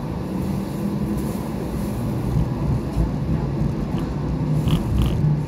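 Light rail car running, heard from inside: a steady rumble with a low motor hum, and a few short clicks near the end.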